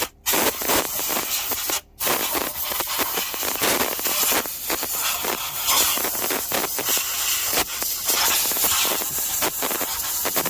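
Compressed-air blow gun hissing as it blasts oil out of the engine's bolt heads so a socket will seat, cut off twice in the first two seconds.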